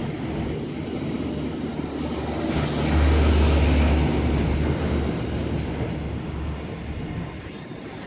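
Freight train rolling slowly past on the rails: a steady low rumble of wagons and wheels, swelling to its loudest about three to four seconds in, then easing off.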